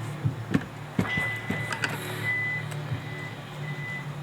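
A car scene: a steady low hum, a few knocks about a second in, then short high electronic beeps on one pitch, repeating irregularly, like a vehicle warning chime.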